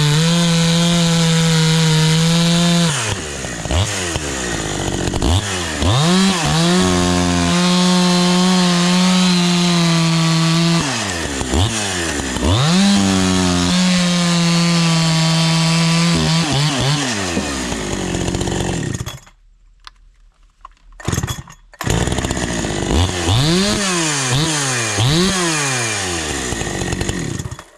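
A 72cc two-stroke chainsaw held at full throttle for several seconds at a time, dropping back toward idle and revving up again several times. About two-thirds through it goes almost silent twice, then comes back with a series of quick throttle blips.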